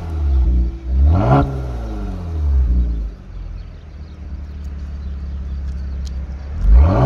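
Kia Stinger GT's 3.3-litre twin-turbo V6 with a Bastuck aftermarket exhaust, revved while standing. A quick throttle blip about a second in rises and falls back to idle, then the engine idles for a few seconds, and another rev climbs near the end.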